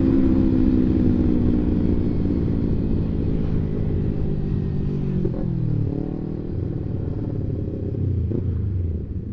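Kawasaki Ninja 250 FI's parallel-twin engine through a CLD Monster Racing aftermarket exhaust while riding: the revs fall away as it slows, with a brief dip and rise in pitch about five to six seconds in, then it runs lower and steadier.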